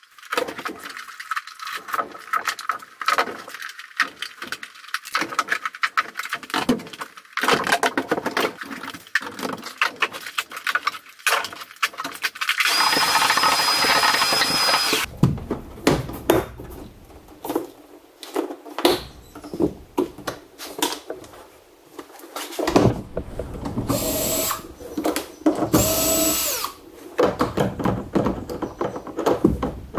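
Workshop clatter of tools and parts being handled, then a vacuum cleaner running steadily for about two seconds midway, then a cordless drill running in short whining bursts near the end.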